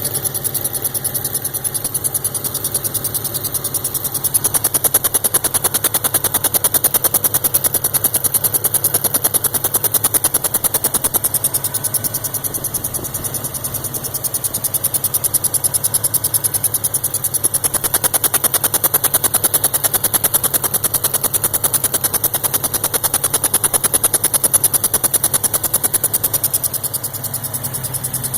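2002 Subaru WRX's turbocharged flat-four running at idle with a rapid, repeating chirp, which the owner traces to around the turbo inlet. It gets louder for two long stretches and eases between them.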